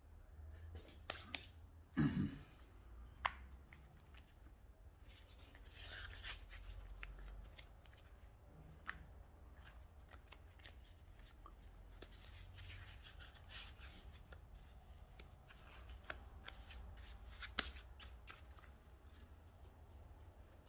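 Workbench handling noises: a knock about two seconds in, scattered light clicks and clinks of brass fittings on a steel table, and the soft rustle of work gloves being pulled on.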